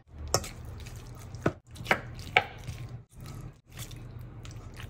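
A utensil mixing tuna salad with mayonnaise in a stainless steel bowl: soft squelching, with about four sharp clicks of the utensil against the metal bowl in the first two and a half seconds, over a low steady hum.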